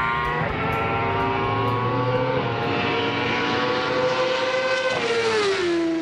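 Open-wheel race car engine running at high revs, its note climbing slowly, with a brief break about half a second in. Near the end the pitch falls away and the sound begins to fade.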